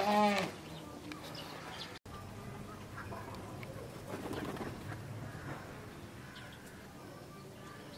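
A brief, loud, pitched cry right at the start, then a domestic pigeon cooing softly over faint background chirps.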